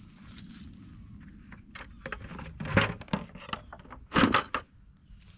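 Plastic buckets being handled and set down on the grass: a series of knocks and rustles, with two loud thumps about three and four seconds in.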